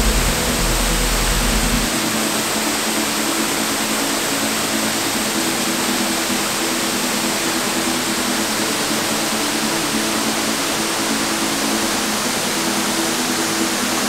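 Steady rush of a waterfall and the shallow creek running over rocks below it, with soft background music holding long low notes underneath.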